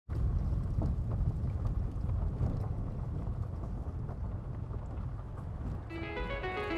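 A low, uneven rumble, as of wind buffeting a microphone or a vehicle in motion, with a few faint clicks. Music with steady notes begins about six seconds in.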